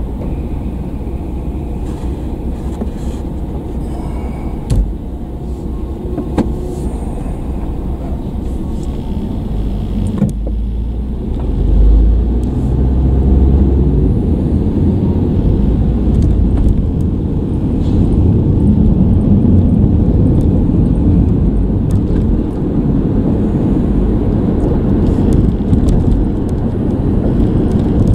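Road and engine rumble inside a car's cabin in city traffic. It is low and steady and grows louder about twelve seconds in as the car gets moving. A couple of short clicks sound near five and six seconds in.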